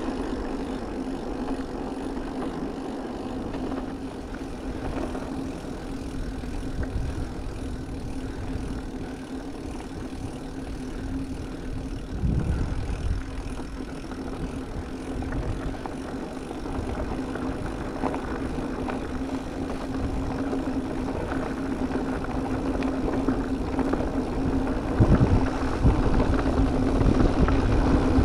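E-mountain bike on the move: a steady hum over an uneven low rumble of wind and rolling tyres, with louder surges about twelve and twenty-five seconds in.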